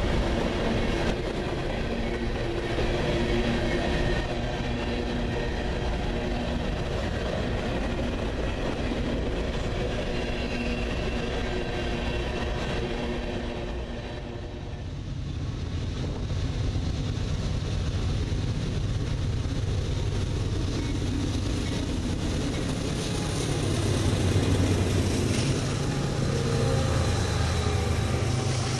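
Freight cars rolling past on steel rails, covered hoppers and then autorack cars, a continuous rumble of wheels on track. The sound dips briefly about halfway, and after that a lower, heavier rumble is louder.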